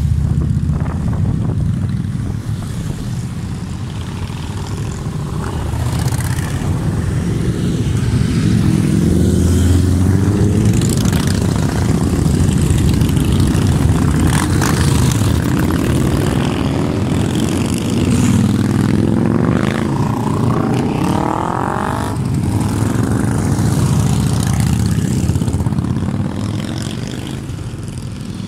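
A procession of motorcycles, mostly cruisers, rumbling past one after another as they round a roundabout and accelerate away. About twenty seconds in, one engine revs up with a clearly rising pitch.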